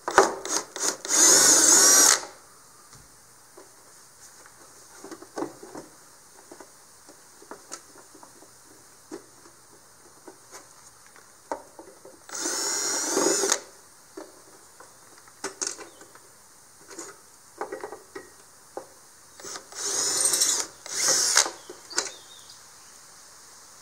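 Cordless drill backing small self-tapping screws out of a plastic trailer fender, in short runs: a few quick blips and a two-second run at the start, a run of about a second midway, and two more runs near the end. Small clicks and taps of handling fall between the runs.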